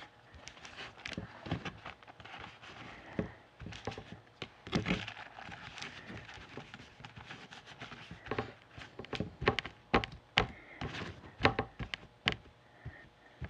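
Irregular light taps and knocks with some paper rustling, from hands pressing and smoothing a paper napkin onto a Mod Podge-coated wooden door hanger on a tabletop.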